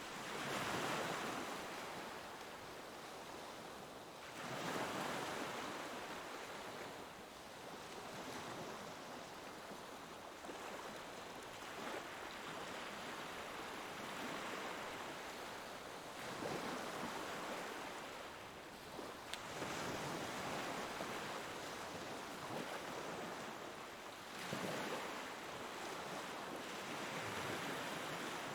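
Ocean waves breaking on a shore, the wash swelling every few seconds and then fading back to a steady hiss.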